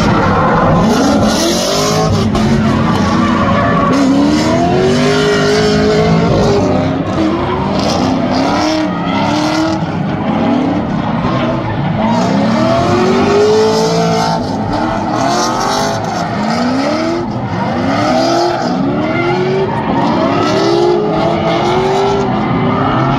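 Drift car engine revving up and falling back again and again as the throttle is worked. Tyres squeal and hiss under it as the car slides.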